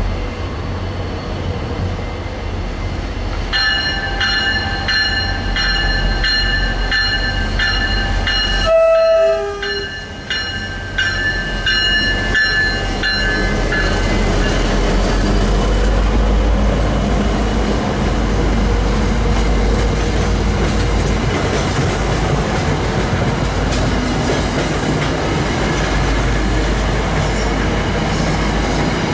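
Diesel locomotive of an MBTA commuter train sounding its multi-note air horn in a long run of short, quick blasts, about two a second, with a brief break near the middle. The horn stops as the locomotive goes by about halfway through, and the engine and the coaches' wheels go on rumbling and clacking past on the rails.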